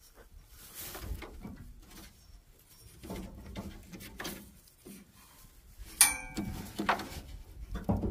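Faint knocks and scrapes of hands working at a pickup truck's front end and hood latch through a brush guard, with a sharp metallic clank about six seconds in.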